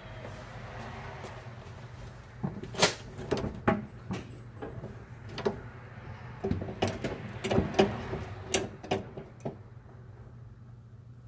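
Brake pedal of a 1971 VW bus being pumped to test for pressure at a master cylinder that is leaking brake fluid: irregular clunks and knocks from the pedal and brake linkage for several seconds, starting about two seconds in. A steady low hum runs underneath.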